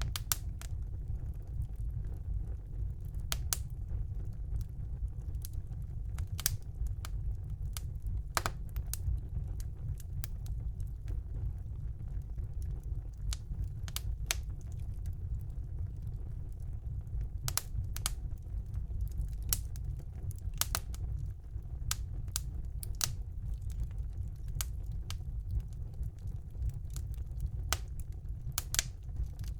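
Wood fire burning in a fireplace: a steady low rumble of the flames with sharp pops and crackles of burning logs at irregular intervals.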